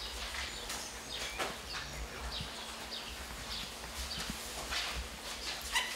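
Ballot papers and envelopes being handled, with irregular rustling and light clicks and knocks, a few each second, over a faint steady hum.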